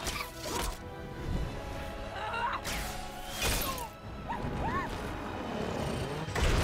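Action film soundtrack: music runs under a series of crashes and smashing impacts, with short shrill cries between them; the heaviest crash comes near the end.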